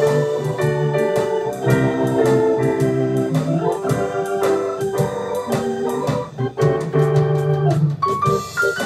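Organ and electric keyboard jamming a blues in G together, with sustained organ chords under keyboard playing. Near the end comes a quick rising run of notes.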